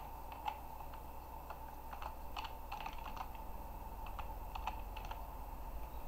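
Typing on a computer keyboard: irregular single keystrokes, with a quicker run of keys about halfway through and another shorter run a little later.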